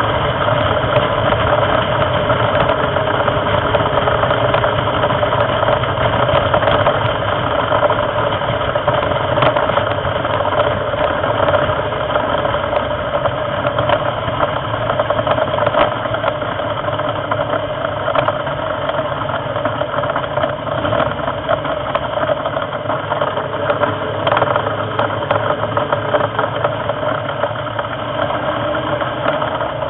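Race car engine heard on board, running hard at high revs down a straight. The engine note is steady and a little quieter in the second half.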